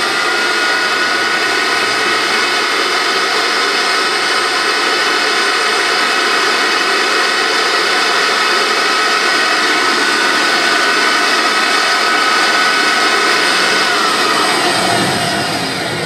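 Hoover Junior 119 upright vacuum cleaner's motor and fan running with a steady high whine, no belt on the brush roll, on its first run after long disuse and running well. About two seconds from the end it is switched off and winds down, the whine falling in pitch as it fades.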